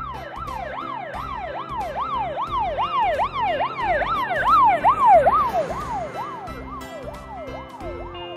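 Emergency-vehicle siren in a fast up-and-down wail, about two and a half sweeps a second. It grows louder to a peak about five seconds in, then fades with its pitch dropping slightly, as it passes by.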